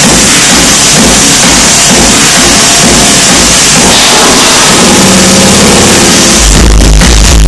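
Electronic dance music played loud over a club sound system, in a breakdown: a dense rushing noise with no beat, then a held synth chord. The kick drum and heavy bass come back in near the end.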